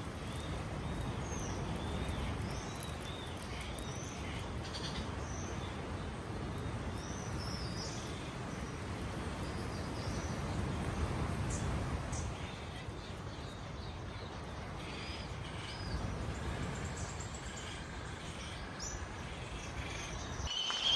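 Seabirds calling over and over, short high chirps and curving calls, over a steady low rumble.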